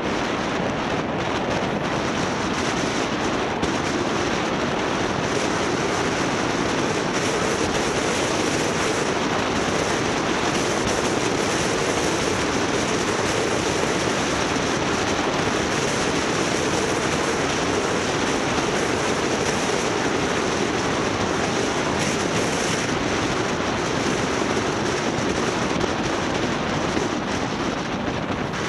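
Steady rushing wind and road noise from a moving vehicle, continuous and unbroken.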